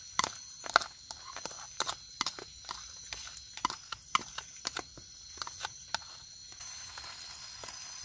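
A metal spoon scraping and clinking against a bowl and an aluminium camping pot as diced food is spooned into the pot, with irregular sharp clicks several times a second. The clinks thin out after about six and a half seconds.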